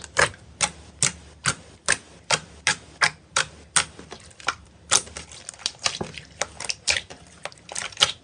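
Slime being pressed and poked, giving a run of sharp, crisp popping clicks at an even pace of a little over two a second, which stop abruptly at the end.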